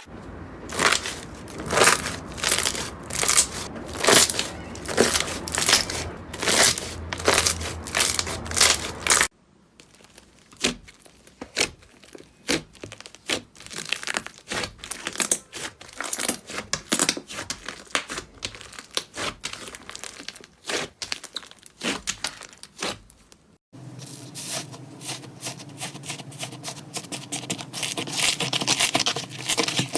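Slime being squeezed and pressed by hand, making crackling, popping clicks. The clicks are loudest and fairly regular at first, then quieter and more scattered, then a dense crackle after a cut near the end.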